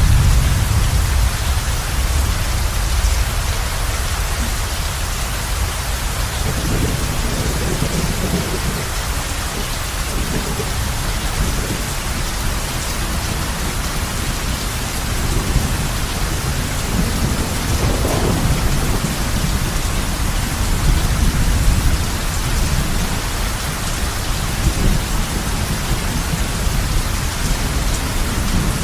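Heavy rain falling steadily on a roof, with thunder rumbling low at the start and rolling again twice later on.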